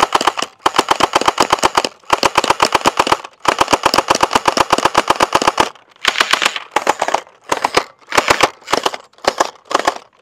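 Battery-powered toy water-bead (gel ball) guns firing on full auto. A fast, machine-gun-like rattle of about a dozen shots a second comes in bursts of one to two seconds with short pauses between.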